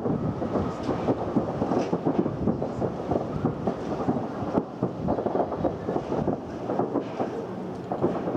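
Fireworks going off in rapid succession after an explosion: a continuous dense crackle of many small muffled bangs.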